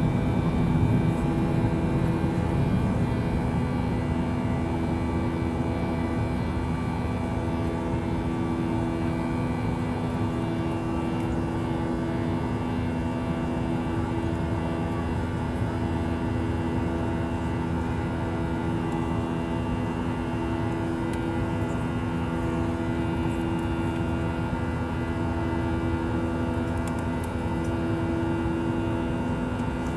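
Boeing 737-800's CFM56-7B turbofan engines at takeoff and climb thrust, heard from inside the passenger cabin: a steady drone with humming tones over a deeper rumble. The rumble eases in the first few seconds as the jet lifts off the runway.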